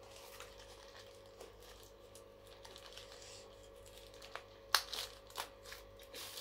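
Protective plastic wrap being peeled off a phone stand and crinkled by hand: light rustling at first, then a run of sharp crackles in the last two seconds.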